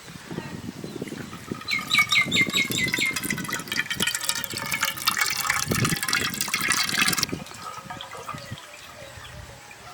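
Water pouring and splashing, stopping abruptly about seven seconds in. About two seconds in, a bird calls a quick run of repeated falling notes over it.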